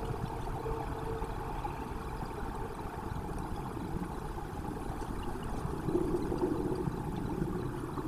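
Steady low rumbling background noise with a faint hum, a little louder about six seconds in.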